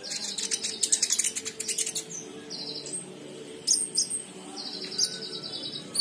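Caged kolibri ninja (Van Hasselt's sunbird) singing: rapid high chirps and twittering for the first two seconds, then sharp single notes and two high buzzy trills, the longer one about five seconds in.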